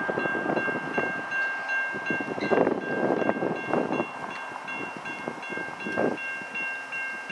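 Safetran type-3 electronic railroad crossing bells ringing in a fast, steady repeating ding over an uneven rushing noise.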